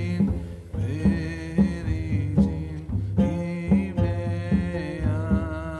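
Background music: a low bass line beating steadily, about two to three notes a second, under a sustained melody.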